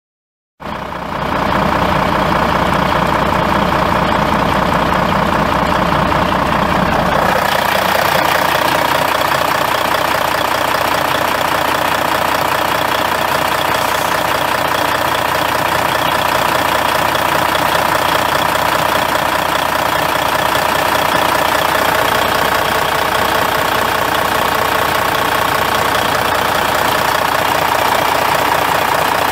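Cummins N14 14-litre inline-six turbo diesel in a semi truck idling steadily; it comes in suddenly, already running. About seven seconds in the deep low rumble drops away abruptly and a brighter, hissier version of the same idle carries on.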